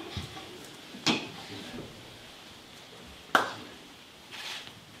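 Two sharp clinks from ceremonial vessels and utensils being handled, a little over two seconds apart, the second the loudest with a short ring. A faint rustle follows near the end.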